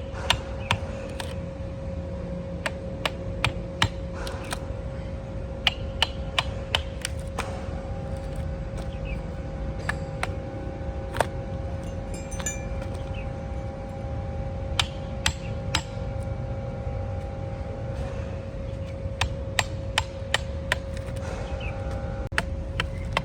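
Irregular sharp hammer knocks, a few a second at times with gaps between, over a steady machine hum in a woodturning workshop.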